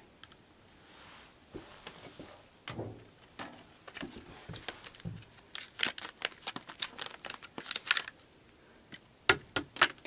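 Stiff plastic blister pack being handled and a Zippo butane lighter insert pulled out of it: scattered clicks and crinkles of the plastic, coming thick and fast about six to eight seconds in and again shortly before the end.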